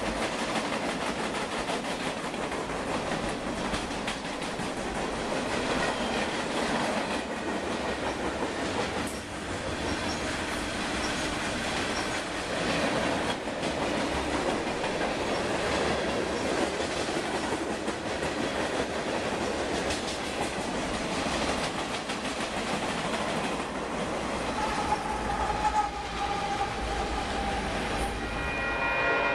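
Freight cars rolling past with a steady rumble and clatter of wheels over the rail joints. Near the end a train horn sounds as a locomotive approaches.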